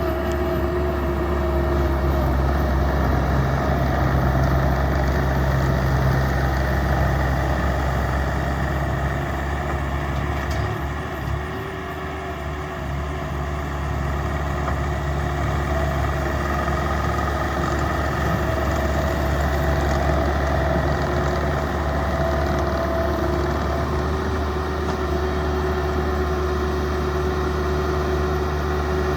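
Bobcat T190 compact track loader's diesel engine running steadily. It drops slightly about eleven seconds in, then picks back up.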